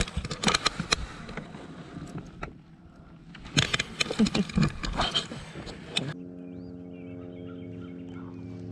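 Irregular knocks, clicks and rustling of handling on a bass boat's deck for about six seconds, then a sudden switch to a steady electric motor hum made of several tones, with faint bird chirps over it.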